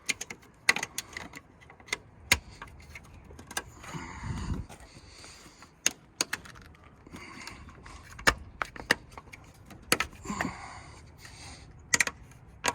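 Scattered sharp clicks and knocks with a few short rustling scrapes between them: a 3D-printed plastic cover being handled and pressed onto the top of a BC coilover.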